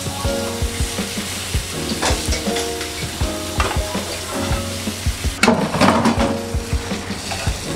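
A chapati wrap sizzling in butter on a grill pan, loudest for about a second near the end as it is pressed down with a spatula. Soft background music with a steady beat plays underneath.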